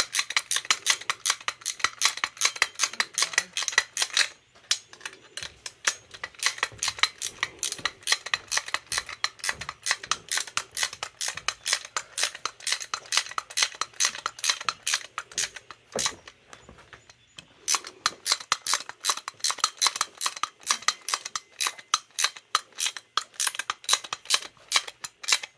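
Ratchet wrench clicking rapidly and steadily, about five clicks a second, while a 3/4-inch nut on an engine-stand caster is run down. It stops briefly about four seconds in and again around sixteen seconds.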